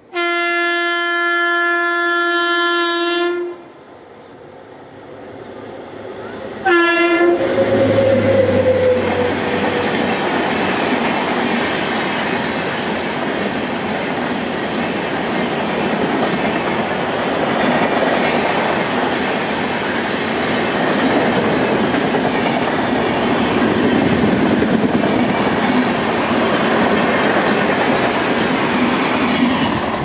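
WAP-7 electric locomotive's horn sounding one long blast of about three and a half seconds, then a short second blast about seven seconds in, as the train runs through at speed. After that comes the steady loud rush and clickety-clack of the passenger coaches passing close by.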